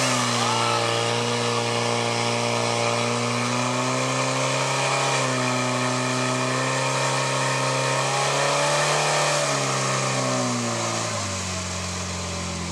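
Portable fire pump's engine running at high revs under load while it drives water through the attack hoses to the nozzles, its pitch wavering slightly. About eleven seconds in it drops to a lower, steady speed.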